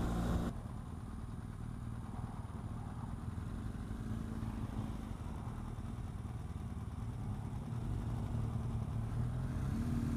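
BMW R1200GS boxer-twin motorcycle engine heard from the rider's seat. About half a second in, the sound drops abruptly from riding with wind hiss to a quieter, low engine note as the bike slows through a junction. Near the end the engine note rises as the bike pulls away.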